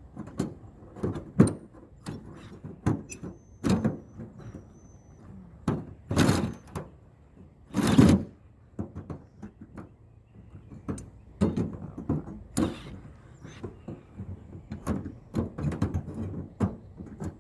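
Stove pipe being forced down through a hole in the roof, knocking and scraping against the edges in irregular bumps, with two longer, louder scrapes about six and eight seconds in.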